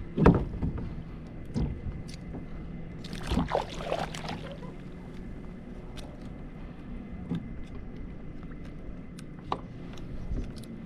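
Water sloshing around a kayak with sharp knocks on the hull, the loudest just after the start, and a burst of splashing about three seconds in.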